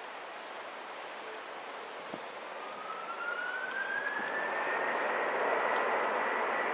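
Airbus A330 jet engines spooling up on the runway, as for a takeoff. A whine rises in pitch from about two and a half seconds in, then levels off into a steady high tone. Meanwhile the engine roar grows louder.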